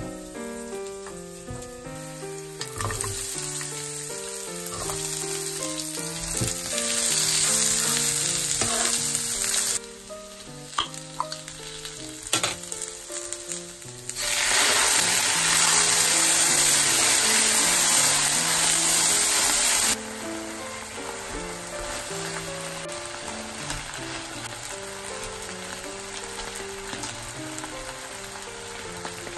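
Garlic and tomato sauce sizzling in a hot nonstick frying pan. The sizzle swells in two loud stretches, with a few light knocks of utensils or the jar between them. Soft background music plays throughout.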